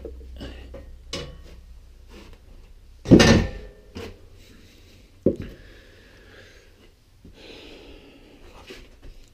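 Things being handled and moved on a cluttered workshop shelf, among them a plastic bottle: scattered light clicks and knocks, with a loud clatter about three seconds in and a sharp knock about two seconds later.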